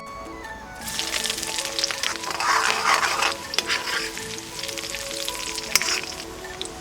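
Food frying in hot oil: a sizzle with sharp crackles sets in about a second in, is loudest around the middle, then eases to a steadier sizzle. Background music plays under it.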